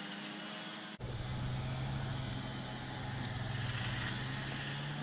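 Steady low hum of an engine running, starting abruptly about a second in, over a broad outdoor background hiss.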